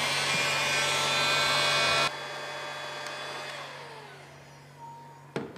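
Electric heat gun blowing hot air with a fan whine while it shrinks a heat-shrink sleeve over a crimped wire splice. It is switched off about two seconds in, and its fan spins down with a falling whine. A short knock comes near the end.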